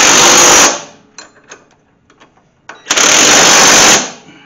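Cordless impact wrench hammering in two loud bursts of about a second each, at the start and about three seconds in, running down the bolts of the strut rod at the lower control arm.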